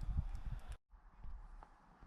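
Wind buffeting the microphone in uneven low rumbles. Just under a second in, the sound cuts off abruptly, then returns as a quieter outdoor background with a few faint clicks.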